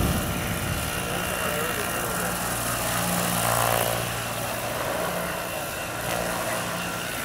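Electric Vario CH-47 Chinook scale model tandem-rotor helicopter, its two rotors running with a steady low hum and whoosh as it hovers and flies.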